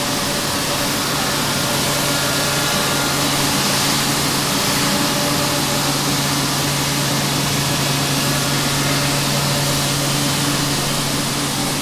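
Steady drone of guitar-factory machinery and ventilation: an even rushing hiss with a constant low hum underneath.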